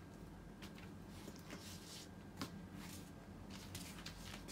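Quiet room with faint rustling and a few soft clicks, one slightly louder tap about two and a half seconds in.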